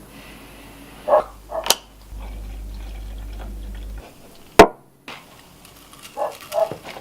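A dog barking in short pairs, a little over a second in and again near the end, with one sharp, loud click between them. A low steady hum runs for a couple of seconds in the middle.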